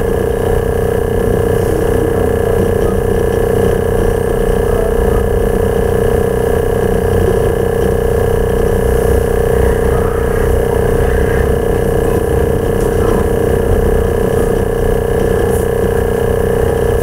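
A steady, unchanging hum with a low rumble beneath it.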